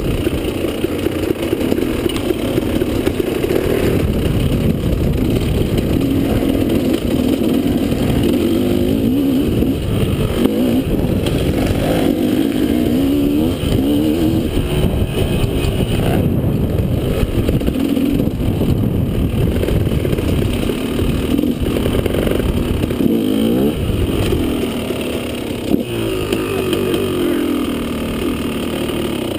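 KTM dirt bike engine heard on board while riding a trail, its pitch rising and falling over and over as the throttle is opened and eased off, over a heavy low rumble. It eases off a little near the end.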